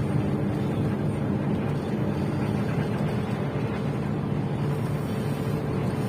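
Steady low engine drone, even throughout.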